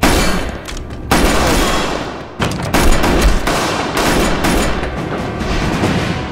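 Rapid automatic gunfire in a firefight, shot after shot, with dramatic background music underneath.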